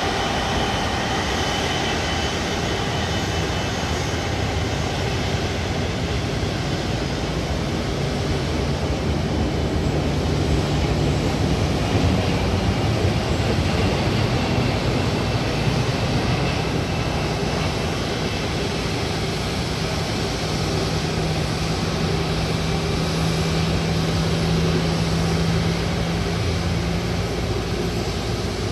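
Airbus Beluga XL taxiing, its twin Rolls-Royce Trent 700 turbofans giving a steady jet-engine noise, with a low hum that slowly rises in pitch through the second half.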